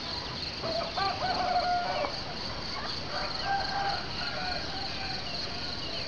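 Roosters crowing, two long crows one after the other, over a steady high-pitched background drone.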